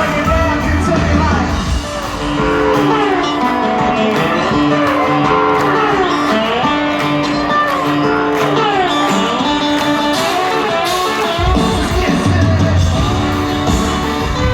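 Live country-rock band music led by a guitar playing melodic lines with sliding notes. The low bass and drums drop away about two seconds in and come back in full near the end.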